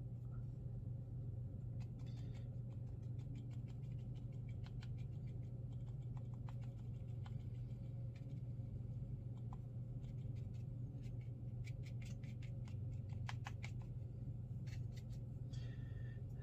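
Watercolor brush dabbing and scratching on rough watercolor paper: clusters of quick, light taps and scrapes, over a steady low hum.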